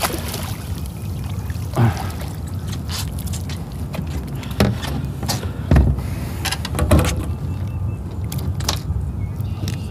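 A red drum splashing in a landing net at the boat's side, then a few short knocks and thumps as the netted fish and the net are brought aboard and handled on the fiberglass deck. The loudest knocks come about six and seven seconds in, over a steady low rumble.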